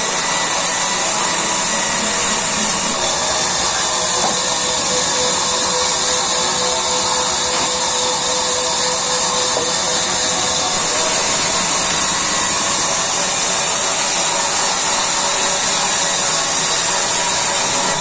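Large sawmill band saw running steadily while a wooden slab is pushed through its blade. It makes a continuous hissing whine with no pauses.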